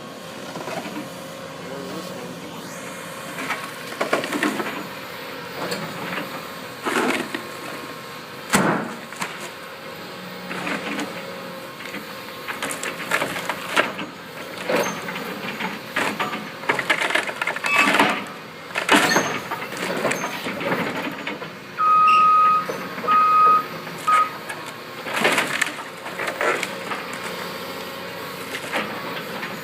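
Excavator running while it tears at a steel-and-timber bridge: an engine drone with repeated crunches, cracks and clanks of breaking wood and metal. A backup alarm beeps three times about three-quarters of the way through.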